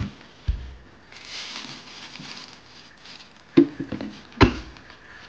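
A plastic cooler box being opened. A dull thump comes about half a second in as the latch and lid give, then plastic bags rustle inside for a couple of seconds, then two sharp knocks near the end as something is taken out.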